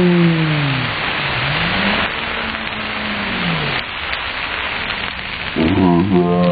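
Loud sizzle and flame hiss from a hibachi teppanyaki griddle as a fireball of flames burns down. Drawn-out voice tones, falling near the start and rising then falling about two seconds in, sound over it, and voices start near the end.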